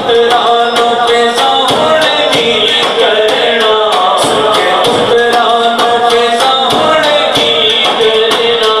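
A man sings a Punjabi devotional kalam into a microphone, his voice held and bending in melismatic lines, over a frame drum (daf) beating a steady, quick rhythm.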